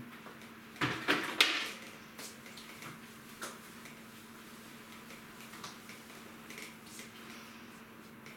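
A string mop and plastic bucket in use on a tiled floor: a quick cluster of sharp knocks and clatters about a second in, then faint scattered taps.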